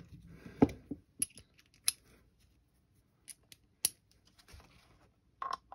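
Small steel driver parts, a socket and a bit, clinking and clicking as they are handled and fitted together: a handful of separate sharp metallic ticks, the loudest just under a second in, with a short cluster near the end.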